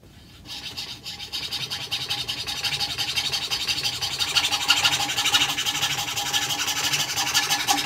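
Antique New Rogers treadle fretsaw running, its blade cutting fretwork with a fast, even rasping stroke over the clatter of the foot-driven mechanism. It builds up over the first couple of seconds as the saw comes up to speed.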